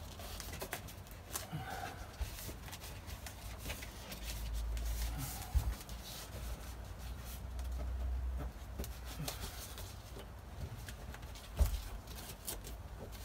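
Hands rubbing and pressing foam insulation liner onto a van's roof panel, a soft scratchy rustle with scattered small ticks. A low rumble runs for a few seconds midway, and there are two sharp knocks, one near the middle and one near the end.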